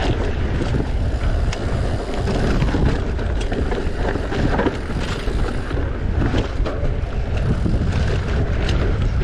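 Wind rushing over the microphone while an enduro mountain bike rides down a rough trail, with frequent short clatters and knocks from the tyres and bike over stones.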